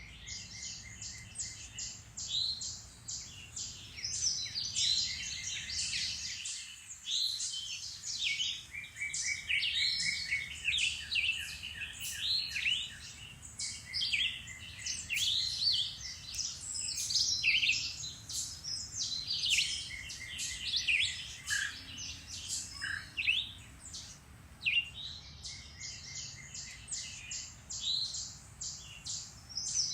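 Several songbirds singing at once in a woodland chorus: overlapping chirps, whistled phrases and rapid repeated-note trills, going on throughout.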